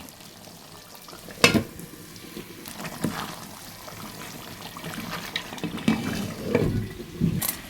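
Beef curry with freshly added ground spices sizzling in a pot as it is stirred, with scraping later on and two sharp knocks of the spoon against the pot, one about a second and a half in and one near the end.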